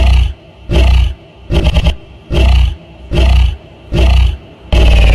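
A large animal's deep roaring calls, repeated at an even pace about once every 0.8 seconds. Near the end a longer call begins, falling in pitch.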